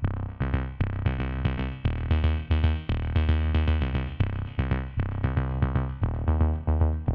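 Background music: an electronic track with a drum-machine beat and heavy bass notes.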